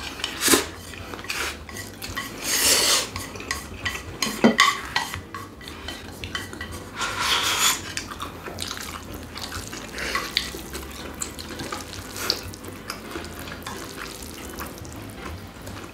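Close-up eating sounds: two people slurping spicy cold bibim noodles, with long hissy slurps about two and a half seconds in and again about seven seconds in. Between them come chewing and short clicks of chopsticks and spoons against ceramic bowls.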